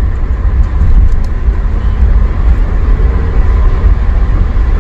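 Car driving slowly through a flooded street, heard from inside the cabin: a steady low rumble of engine and road, with the hiss of tyres through standing water.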